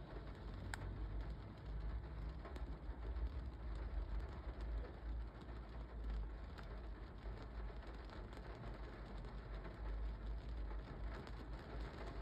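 Rain drumming on a car's windshield and roof, heard from inside the car: a steady patter with scattered sharper ticks of single drops, over a steady low rumble.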